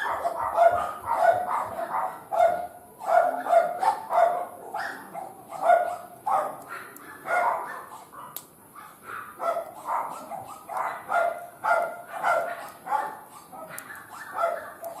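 A dog barking over and over in short barks, growing fainter near the end.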